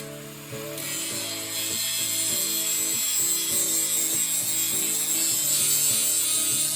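Hand angle grinder grinding an edge onto a steel lawn mower blade: a steady high grinding hiss that is weak for the first moment and picks up under a second in. Background music with changing notes plays under it.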